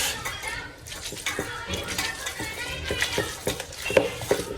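Utensils clinking and scraping against bowls and plates in irregular light knocks, as food is stirred and dished out.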